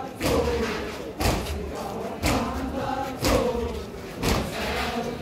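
A crowd of mourners chanting a lament together, with loud unison chest-beating (matam) landing about once a second.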